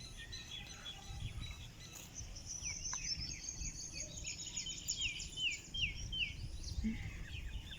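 Small birds chirping and trilling over low outdoor background noise, with a run of short, evenly spaced falling notes around the middle.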